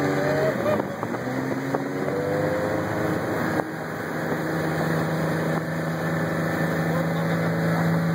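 Motorboat engine running under way while towing two inflatable tubes, over a steady rush of churning wake water. Its pitch shifts a few times in the first three seconds or so, then holds steady.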